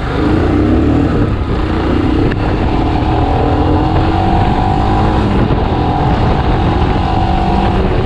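Royal Enfield Himalayan's single-cylinder engine accelerating under the rider, its note climbing, dropping at a gear change about two seconds in, then climbing slowly again, with wind rushing over the microphone.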